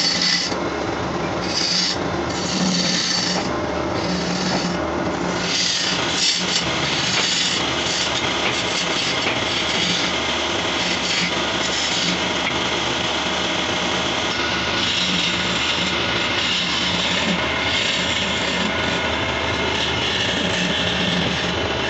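A hand turning chisel cutting a wooden spindle as it spins on a wood lathe: a continuous scraping, rasping cut with no breaks, over a steady low hum.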